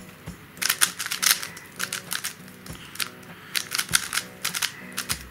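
YuXin Kylin V2 M magnetic 3x3 speed cube being turned fast by hand: quick runs of plastic clicking and clacking as the layers turn, with short pauses between runs.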